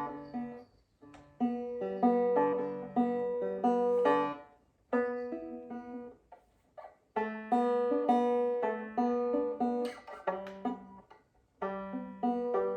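Banjo being picked in short melodic phrases of plucked notes, with brief pauses between the phrases.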